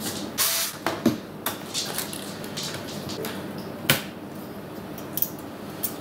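Sheet-metal cover plate and screws being handled inside an opened DJ controller as the plate is taken off: scattered clicks and clinks, a short scrape about half a second in, and a sharp knock about four seconds in.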